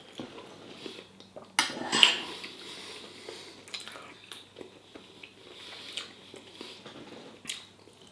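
Cutlery clinking and scraping on dishes while eating, with one sharp, loud clatter about one and a half seconds in and light scattered clicks after.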